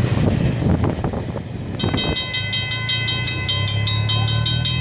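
Freight train rumbling past on the rails. About two seconds in, a grade-crossing warning bell starts ringing rapidly, about five strikes a second, over a low steady hum.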